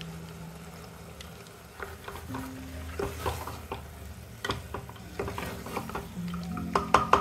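Wooden spoon stirring a thick chana and potato masala in an aluminium pressure cooker, with irregular knocks and scrapes against the metal that grow more frequent toward the end, over a light sizzle of frying.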